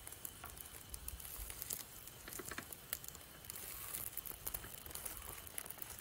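Egg and bread omelette sizzling in a frying pan on a portable gas stove, a light crackle full of small ticks, with soft scrapes of a wooden spatula folding it in the pan.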